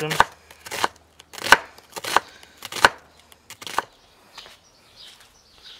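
Chef's knife chopping onion on a wooden cutting board: about six sharp knocks at a steady, unhurried pace. The chopping stops about four seconds in.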